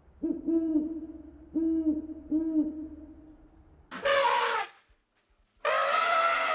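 A bird's low hooting calls: a drawn-out hoot, then a few shorter ones. About four seconds in they give way to two loud, harsh animal cries, one after another.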